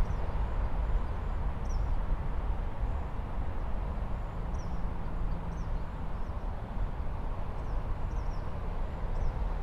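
Steady low outdoor rumble with faint, short high bird chirps repeating every second or so.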